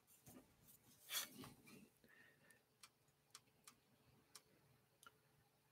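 Near silence, with a soft brief rustle about a second in and a few faint, widely spaced clicks from the old Bakelite Dictograph case being handled and turned over in the hands.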